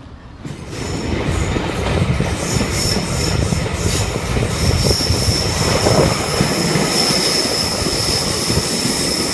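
Diesel train running on the track close by, with a low rumble and a steady high-pitched wheel squeal; the sound comes in suddenly about half a second in and stays loud.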